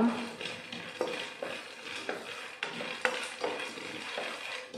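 Wooden spatula stirring pottukadalai (roasted gram dal) as it roasts in a frying pan: a steady scraping with many small, irregular clicks of the dal against the pan.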